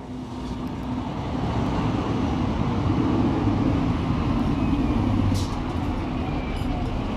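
A low rumbling noise like a passing vehicle, building up over the first couple of seconds and easing slightly after about five seconds, with a steady low hum beneath it.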